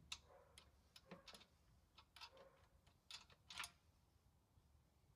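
Faint, irregular metallic clicks and taps of spanners working on a rear brake caliper bolt, about ten in all.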